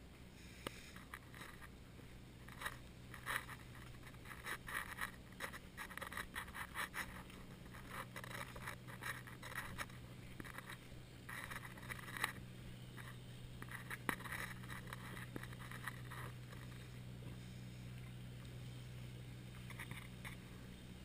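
Irregular scraping and rubbing noises from a camera carried while walking along a path, thinning out over the last few seconds. A faint steady low hum runs underneath.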